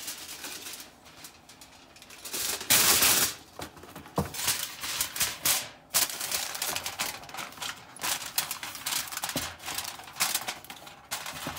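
Aluminium foil crinkling and rustling as it is pressed and folded over a cooking pan by hand, in irregular crackles that are loudest about three seconds in.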